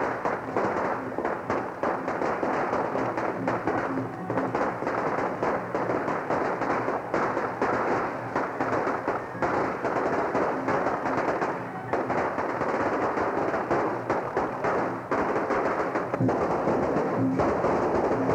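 Strings of firecrackers crackling in a rapid, unbroken stream, with music playing underneath; a few held notes sound about four seconds in and again near the end.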